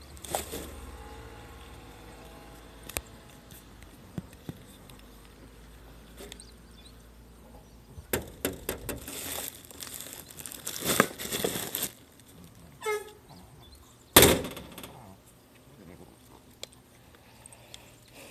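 Hinged stainless-steel lid of a garbage collection bin clanks open, ringing on for a couple of seconds. A plastic garbage bag rustles and crinkles for several seconds as it goes in, then the metal lid bangs shut after a brief squeak, the loudest sound, ringing as it settles.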